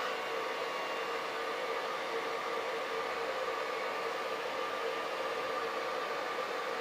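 Hair dryer running steadily: a constant rush of air with an even motor whine.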